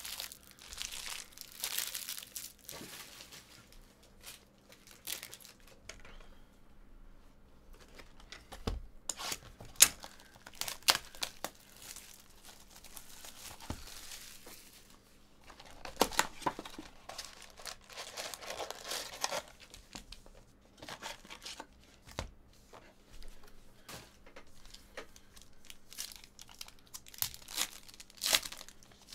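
Trading card pack wrappers being torn open and crumpled, in irregular crinkling bursts with scattered sharp clicks, the loudest about ten seconds in.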